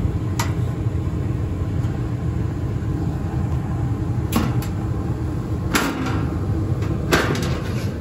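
Running gas furnace giving a steady low rumble, with several sharp metallic knocks and clatters as its sheet-metal access cover is handled and taken off.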